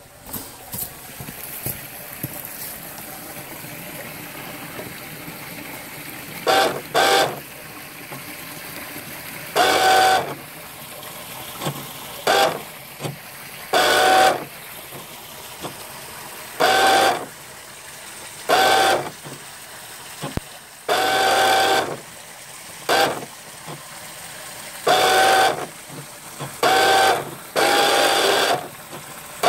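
Toy RC boat's electric motor whining in short bursts of throttle, about a dozen times, each lasting a second or less at a steady pitch. A steady hiss of moving water runs between the bursts.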